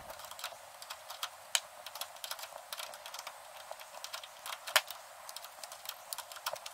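A 10 mm wrench tightening the nut on a car battery's negative terminal clamp: a string of small, irregular clicks, with a sharper click about a second and a half in and another near five seconds.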